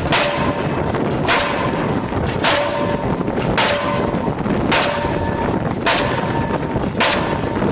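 Link-Belt diesel pile hammer running steadily and driving a concrete pile, firing about seven blows in a steady rhythm, a little over one per second. Each blow is a sharp bang followed by a short metallic ring, over a continuous engine-like rumble.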